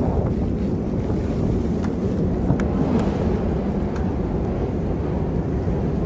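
Snowstorm wind buffeting the microphone: a steady, low rumbling rush, with a few faint ticks.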